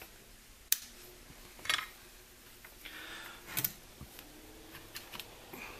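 A few light, scattered clicks and taps from hand work with a soldering iron and solder wire on a circuit board, over a quiet background.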